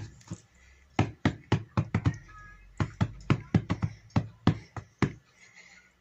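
A quick, irregular series of sharp taps or knocks, about three to four a second, that stop about five seconds in.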